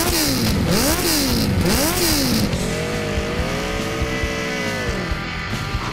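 Motorcycle engine revved in three quick blips, then held at higher revs for about two seconds and let fall near the end.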